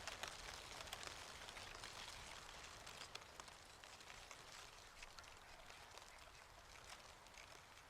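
Faint patter of dry leaves falling and landing: many small, irregular crackles and ticks over a soft hiss, easing off slightly toward the end.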